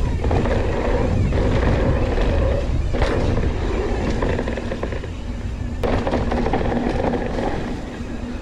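Mountain bike rolling over a dirt trail: steady tyre noise and bike rattle with wind rushing over the microphone, and two sharp knocks from bumps.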